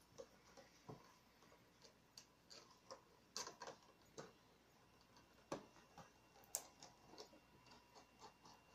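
Near silence broken by faint, irregular small clicks and taps, the two loudest a second apart in the later half: the handling of action-figure packaging.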